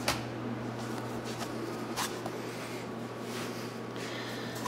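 Room tone: a steady low hum under hiss, with a soft click at the start and another about two seconds in.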